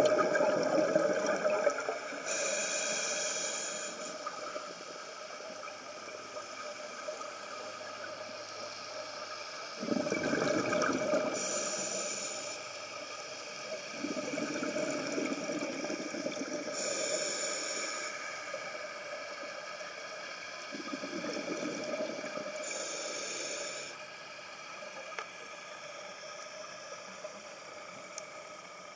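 Scuba diver breathing underwater through a regulator: four short hissing inhalations a few seconds apart, with gurgling rushes of exhaled bubbles between them.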